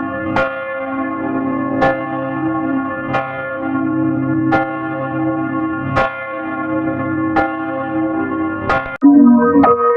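A church bell tolling, struck seven times about every second and a half, each stroke ringing on into the next. Near the end it cuts to a louder ringing with a different set of tones.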